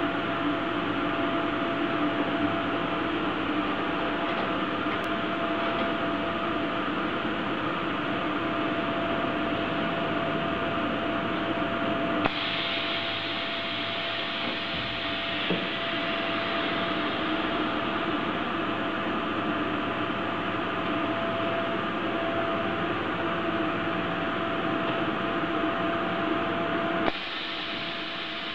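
Steady factory machinery noise: a constant hiss and hum with a steady mid-pitched tone, its character changing abruptly about halfway through and again near the end.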